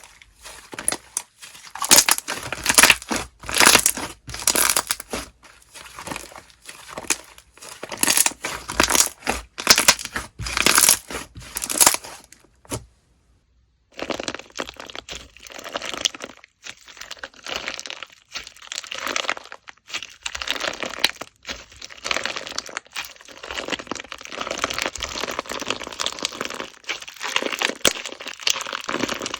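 Slime being squeezed and pressed by hand, making a dense run of crackling, crunching pops. About halfway through it breaks off for about a second, and after that the crackle is more continuous.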